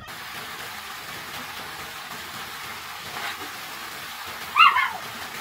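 Water pouring down steadily and splashing into a shallow pool. A short loud call cuts in about four and a half seconds in, with a fainter one a little before it.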